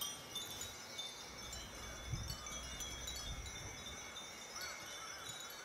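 Many Japanese fūrin wind bells tinkling in the breeze: a steady stream of high, overlapping rings.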